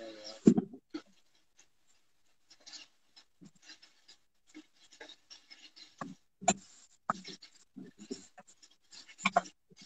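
A cooking utensil scraping and knocking in a pan of chicken pieces being stirred over high heat to seal them. The scrapes come irregularly, with a few louder knocks, one about half a second in and several from about six seconds on.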